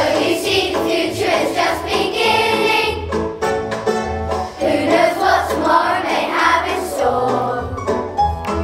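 A group of children singing a song together over a musical accompaniment with repeated low bass notes.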